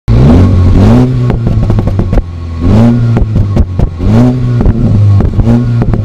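Stock twin-tip exhaust of a 2015 Mini Cooper S (F56) with its 2.0-litre turbocharged four-cylinder, blipped from idle about five times. Each rev rises and falls back, followed by a string of sharp pops and crackles as the throttle is dropped. This is the overrun crackle the stock exhaust gives in sport mode.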